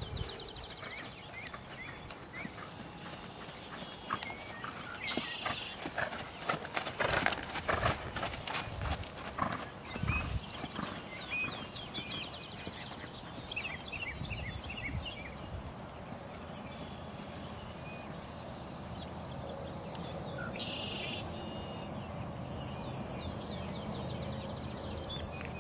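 Hoofbeats of a ridden horse on grass, with a run of sharper knocks about six to ten seconds in, and birds chirping over a steady hiss.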